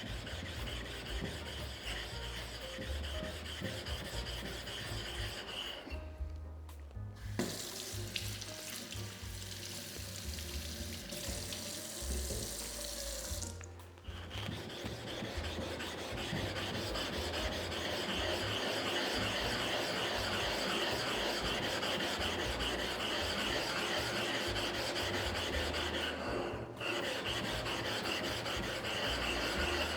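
A 120-grit stone rubbed over the wet face of an NSK Kogyo 800-grit diamond sharpening stone: a steady gritty scraping, stone on stone, that raises a mud by abrading the diamond stone's bond. The rubbing breaks off briefly a few times.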